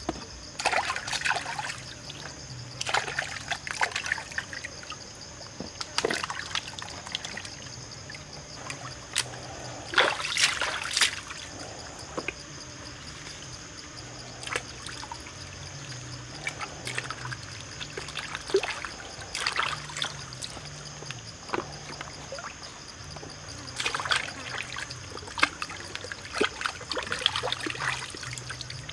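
Shallow stream running over rocks, with irregular splashes and sloshes of hands working in the water and rinsing a fish.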